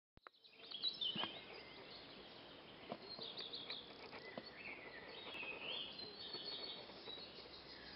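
Faint outdoor ambience of small birds chirping and calling, with a few soft clicks.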